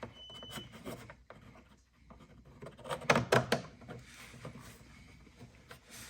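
Hands fitting a plastic rock guard and its screws under a car: scattered clicks, rubbing and scraping, with a quick cluster of sharp knocks about three seconds in.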